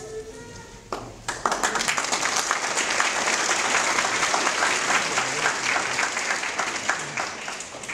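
A group of people applauding: clapping breaks out about a second in, stays dense and steady, and thins out near the end.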